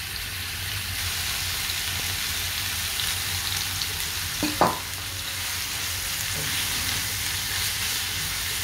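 Grated apple sizzling in hot ghee in a kadai, a steady frying hiss while a silicone spatula stirs it. A single sharp knock about halfway through.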